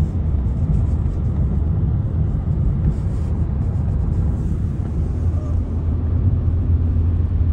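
A car driving, with a steady low rumble of engine and road noise.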